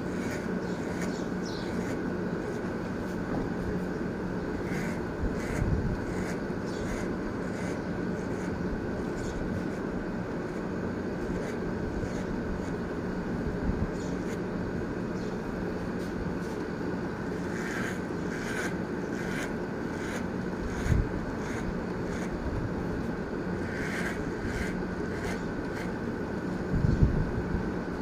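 Corded electric hair clippers running with a steady buzz while cutting hair, with a few short low thumps, the loudest near the end.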